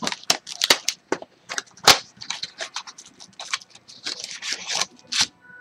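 Trading-card pack wrapper being torn open and crumpled by hand: a quick, irregular run of sharp crinkles and crackles, the loudest about two seconds in.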